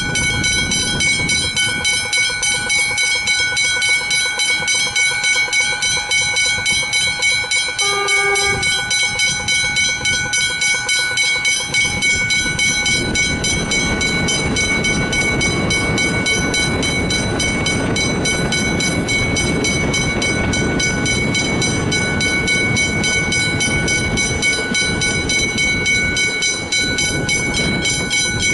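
Westinghouse Hybrid electronic level-crossing bells ringing continuously with a fast, steady repeat, because the boom gates are down. A short train horn blast sounds about eight seconds in. From about halfway, a Metro electric suburban train runs through the crossing, and the rushing noise of its wheels on the rails rises under the bells.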